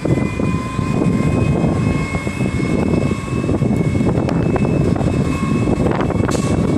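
DaDee Mantis garbage truck's engine running loud and steady, with a thin steady whine over it and a short hiss near the end.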